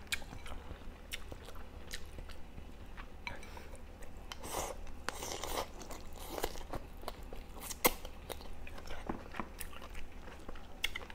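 Close-miked mouth sounds of eating: biting and chewing on pieces of duck, with scattered short clicks and smacks.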